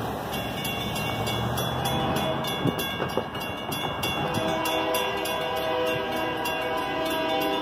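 Mechanical railroad crossing bell ringing in rapid, even strokes as the crossing signal activates. A train horn sounds from about four seconds in.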